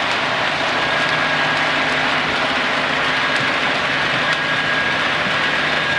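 Model diesel locomotive running on the layout, its DCC sound decoder giving a steady engine drone over the hiss of the running train.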